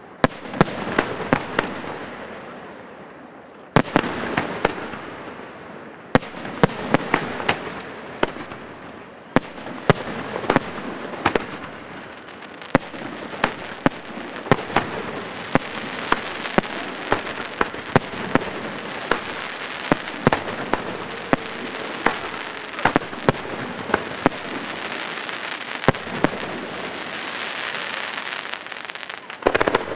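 Fireworks display: shells bursting in a rapid, irregular series of sharp bangs, with continuous crackling between them that thickens into a dense crackle near the end.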